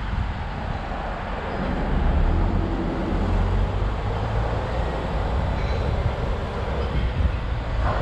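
Car driving slowly: a steady low rumble of engine and tyres that grows a little louder about two seconds in, with a brief sharper sound near the end.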